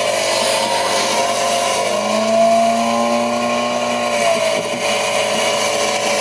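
Motorboat engine running at speed under a steady rushing noise. A steadier engine tone comes through for a couple of seconds in the middle.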